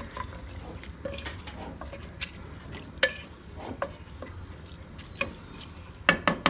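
Wooden spoon stirring soaked rice into a wet chicken curry in a pressure cooker pot. Soft scraping with a knock against the pot about every second, and a quick run of knocks near the end.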